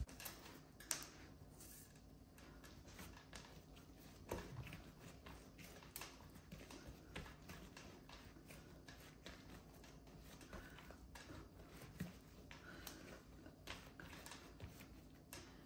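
Faint soft pats and taps of hands shaping a ball of sourdough dough on a granite countertop, with a few slightly louder taps in the first few seconds.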